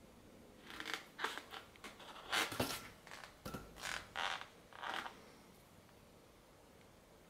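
Cat's paws swatting and rubbing a long latex modelling balloon: a string of about ten short, scratchy swishes starting about a second in and stopping around five seconds in.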